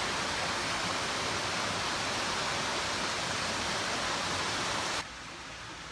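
Rushing water running steadily with a loud, even hiss, cutting abruptly to a quieter rush near the end.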